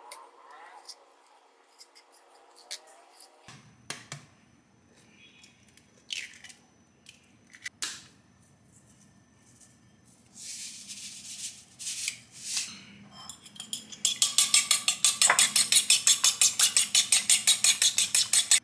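Fork beating an egg in a ceramic bowl: a fast, even run of clinking strokes, about seven a second, starting a little over two-thirds of the way in and going on to the end. Before it, scattered light taps and clicks.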